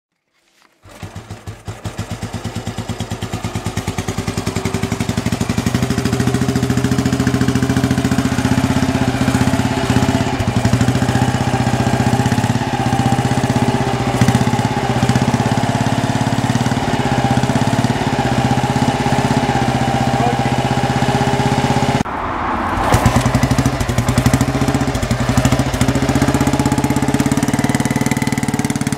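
Excelsior Manxman 350cc single-cylinder four-stroke motorcycle engine running stationary through a new handbent header pipe and chrome silencer, a steady single-cylinder exhaust beat. About a second in the engine sound comes in, and about 22 seconds in it changes abruptly, the beat louder and sharper.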